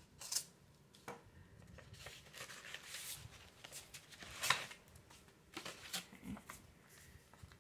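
Faint rustling and crinkling of paper sheets being handled and unfolded, in short scattered crinkles. The loudest come about half a second in and again about four and a half seconds in.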